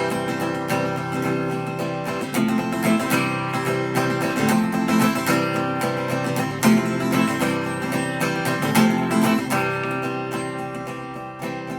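Acoustic guitar strummed steadily in an instrumental break of a country-style song, with no singing.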